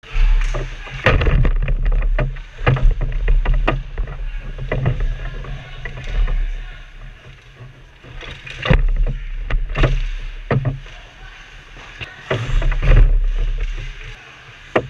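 Ice hockey play along the boards, heard through a camera mounted on them: a string of sharp knocks and clacks as sticks, the puck and players hit the boards, over skates scraping the ice. A heavy low rumble from the boards shaking comes and goes.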